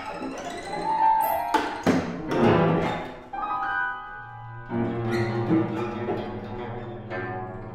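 Free improvisation on grand piano, cello and guzheng: scattered struck and plucked notes with sharp, clicking attacks. About four seconds in, a sustained low bowed cello note sets in beneath sparse piano and zheng notes.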